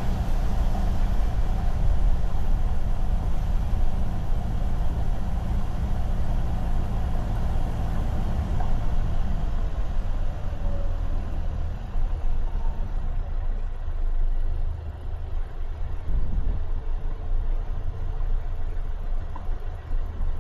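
Car engine running with a low rumble that eases off in the second half, the car slowing to an idle.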